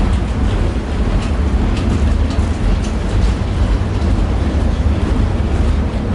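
Tatra T6B5SU tram running along the track, heard from inside the car: a steady low rumble with scattered clicks and rattles.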